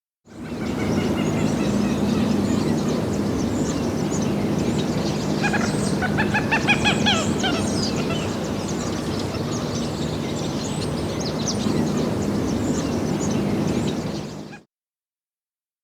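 Birds calling over a steady low murmur, with scattered high chirps and a quick run of falling calls about six seconds in. The recording fades in at the start and fades out about a second before the end.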